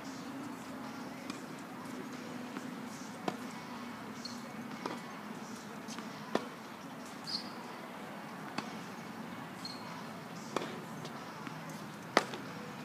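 Tennis ball being struck by rackets and bouncing on a hard court in a rally: sharp single pops every one to two seconds, the loudest near the end.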